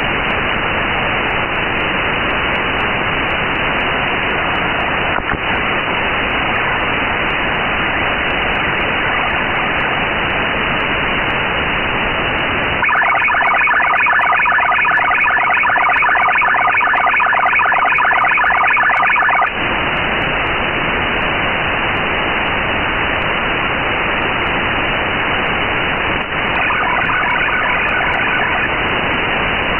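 Shortwave receiver hiss in a narrow single-sideband passband, with two 2G ALE (MIL-STD-188-141A) transmissions heard as a rapid chord of eight-tone FSK. The first is strong, starting about 13 s in and lasting some six and a half seconds. The second, near the end, is fainter and lasts under three seconds.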